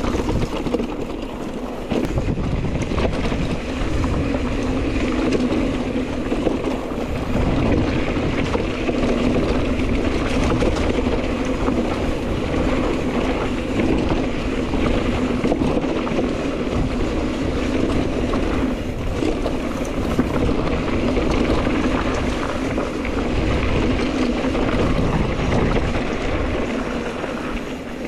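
Mountain bike riding down a dry dirt singletrack: wind buffeting the camera microphone over the steady rumble of knobby tyres rolling on dirt. The noise is loud and steady, easing slightly near the end.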